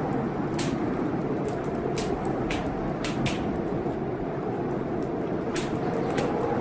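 Steady rushing of a rainstorm with irregular sharp pops and crackles of a wood fire burning in a fireplace.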